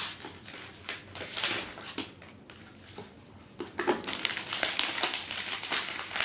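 Plastic packaging and protective film crinkling and rustling as a new tablet is unwrapped, with scattered small taps and clicks. The handling goes quieter in the middle and turns to denser rustling from about four seconds in.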